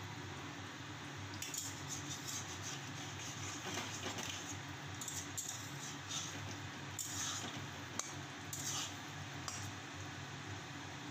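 Masoor dal bori (lentil-paste dumplings) frying in hot oil in a wok: a steady sizzle, broken by short crackles and scrapes of a metal spatula against the pan every second or so.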